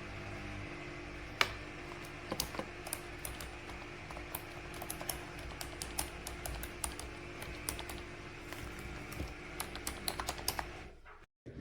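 Typing on a wireless keyboard with round, typewriter-style keycaps: irregular key clicks with a few louder taps, over a steady background hum. The sound drops out briefly near the end.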